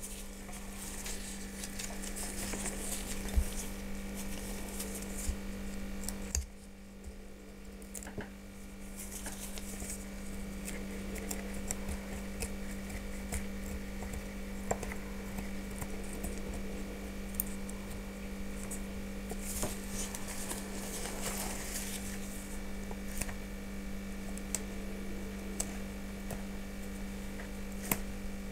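Dry orchid roots and papery leaf sheaths rustling and crackling as they are picked at and pulled off by hand, with scattered sharp clicks, over a steady low hum.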